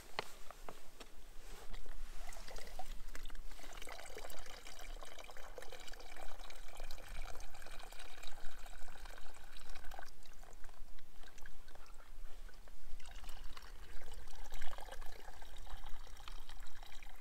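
Filtered water streaming from a squeezed Katadyn BeFree filter flask into a plastic bottle. It runs in two spells, with a short break about ten seconds in.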